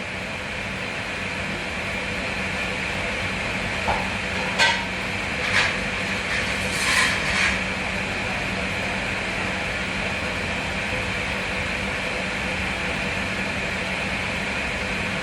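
Steady running noise of commercial kitchen machinery, a constant hum under a hiss, with a short cluster of sharp clattering knocks a few seconds in.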